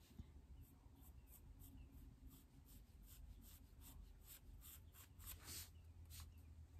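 Faint scratching of a wooden pencil on paper: a quick run of short, light sketching strokes.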